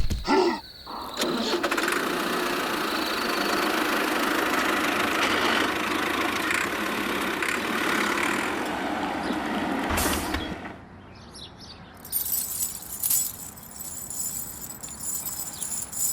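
A small motor or engine-like hum runs steadily for about ten seconds, then stops. Scattered light clicks and clinks follow near the end.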